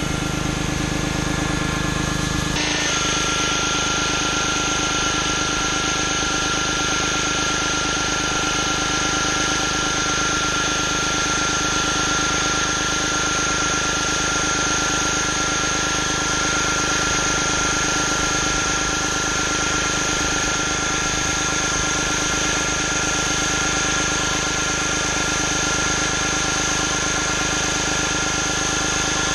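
Pressure washer engine running steadily under load, with the hiss of the high-pressure water spray over it; the sound shifts abruptly about two and a half seconds in, then holds steady.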